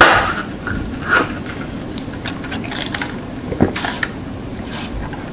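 A straw and paper soft-drink cup handled close to the microphone: a sharp knock as it starts, a few clicks, then short sips through the straw.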